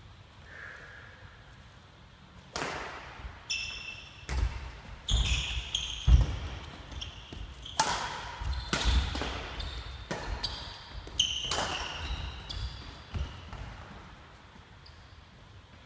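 Badminton rally: racket strings striking the shuttlecock with sharp cracks, about a dozen over ten seconds, mixed with sneaker squeaks and footfalls on the wooden court floor. It starts a couple of seconds in and stops a couple of seconds before the end.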